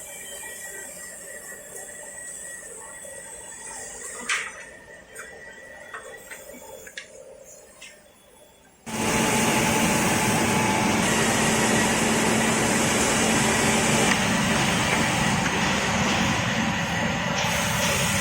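SM-20-1J double-end cutting and drilling woodworking machine: a low steady hum with a few sharp clicks, then about halfway its motors come on suddenly with a loud, steady running noise that holds on.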